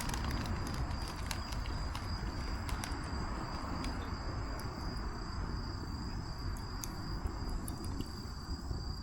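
Campfire crackling with scattered sharp pops, over a steady high insect trill and a low rumble.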